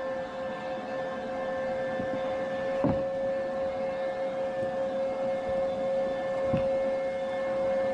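A steady, high-pitched whine with several overtones, with soft knocks about three seconds in and again near six and a half seconds.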